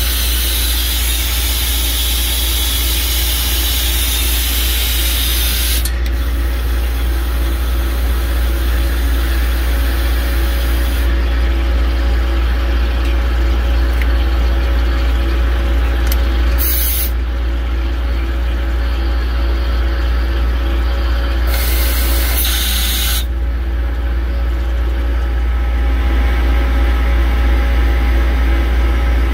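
Mitsubishi FA-20 CNC wire EDM machine running: a steady low hum with the hiss of water flushing around the wire guides. The hiss drops away and comes back several times, with two short louder bursts past the middle.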